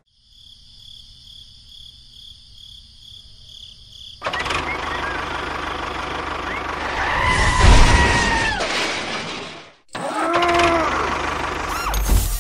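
Small motor of a mini toy tractor running as it drives through sand, starting about four seconds in with a whine that rises and falls in pitch; it cuts out briefly near ten seconds and starts again.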